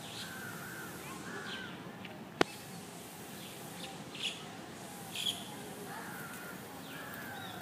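Birds calling on and off, short wavering calls and a few brief higher squawks, over steady background noise, with one sharp click about two and a half seconds in.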